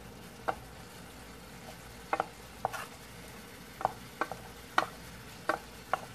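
A spoon scraping and knocking against a stainless steel pot as cooked rice is scooped out, about ten sharp, irregular clinks. Under them, a faint steady sizzle from ground beef and tomatoes cooking in a skillet.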